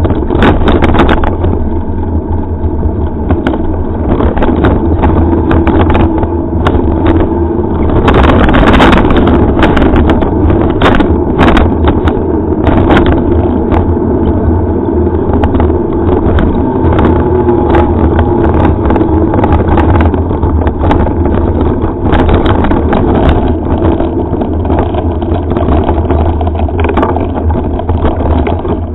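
Mountain bike ride heard through a helmet-mounted camera: a steady loud rumble of tyres on a dirt track and wind on the microphone, with a run of knocks and rattles from bumps about eight to thirteen seconds in.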